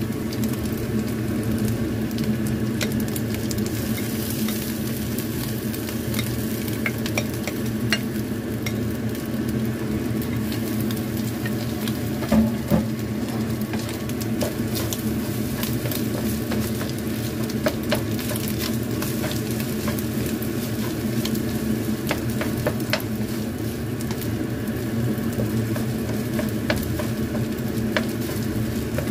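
Egg-yolk-coated rice frying with diced ham and sausage in a nonstick wok: a steady sizzle under the scraping and light tapping of a wooden spatula stirring it through, with a couple of louder knocks about twelve seconds in.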